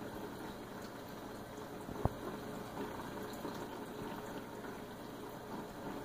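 Steady trickling and bubbling of a saltwater reef aquarium's circulating water, with one sharp click about two seconds in.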